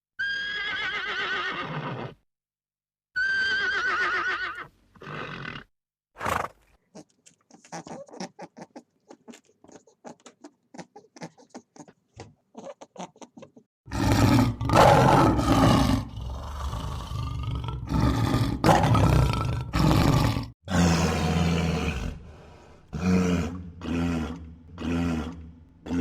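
A series of animal calls: two wavering, pitched calls, then a run of short, quick clicks or grunts, then loud, rough roaring calls about halfway through, followed by shorter repeated calls.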